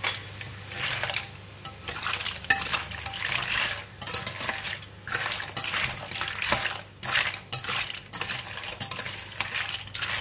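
Lala clam shells clattering against each other and the stainless-steel wok as they are stirred and tossed with a wooden slotted spatula, in uneven scraping strokes several times a second.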